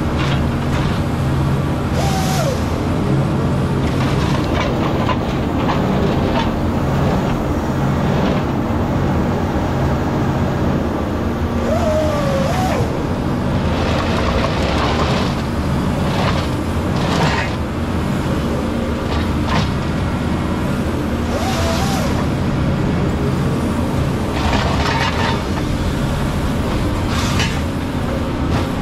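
Cat 558 forestry machine's diesel engine running steadily under working load, with the SouthStar 600 processor head working logs: short bursts of hissing, rasping noise come every few seconds over the engine drone.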